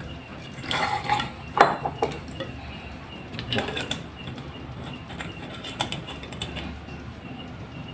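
Glass clinking and clattering as a glass bottle of mixer is tipped over a drinking glass with ice, then handled, in a few short clusters.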